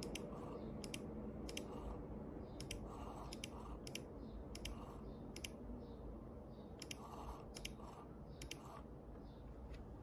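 About a dozen sharp clicks at irregular intervals, each a quick double click, over a low steady hum.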